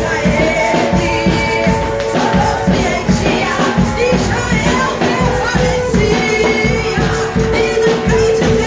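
Gospel music with singing over a steady beat and long held notes.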